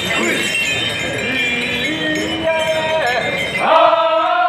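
Many voices talking over one another, with light metallic jingling. About three and a half seconds in, a loud, long call at a steady pitch starts and is held.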